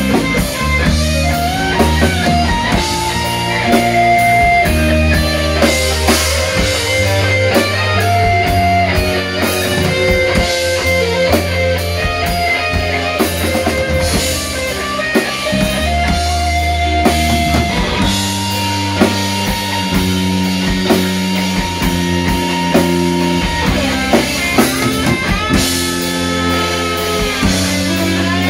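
Live rock band playing an instrumental passage: electric bass, guitar and drum kit, with long held lead notes over a steady bass line and regular drum hits.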